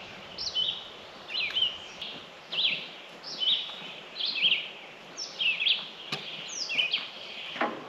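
A songbird calling repeatedly in short, sweeping chirps, about one or two a second, over faint outdoor background noise.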